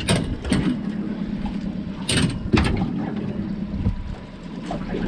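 Outboard motor running steadily at low speed, with several sharp splashes and knocks, the loudest about two seconds in, as a big king salmon is hauled aboard in a landing net.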